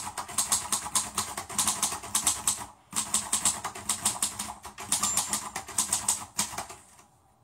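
Rapid clicking like fast keyboard typing, about five clicks a second, in two runs with a brief break just before 3 s in, fading out near the end.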